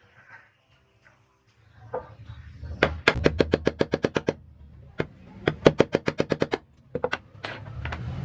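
A rapid run of sharp clicks, about eight a second, in two bursts of a second or so each, with a few scattered clicks near the end.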